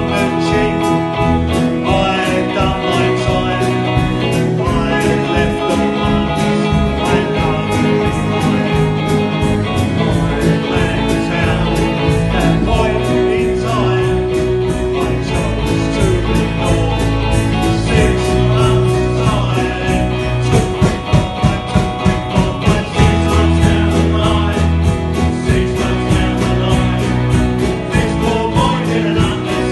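Live rock band playing a song with a steady beat: electric guitar, drums and keyboard under a male vocal.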